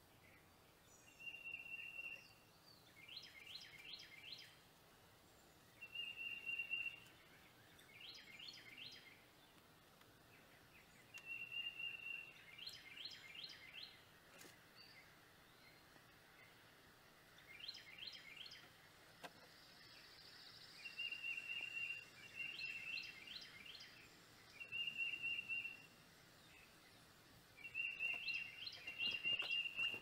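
Small songbirds calling over and over: a clear held whistle about a second long alternates with quick runs of falling chirps, every couple of seconds, over a faint outdoor hiss.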